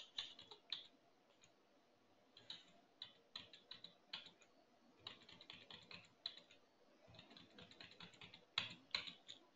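Faint, irregular clicks of computer keyboard keys being tapped, as Alt+Tab is pressed over and over to cycle through open windows.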